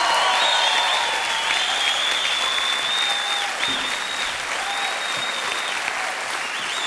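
Studio audience applauding after a dance, with repeated high whistles over the clapping.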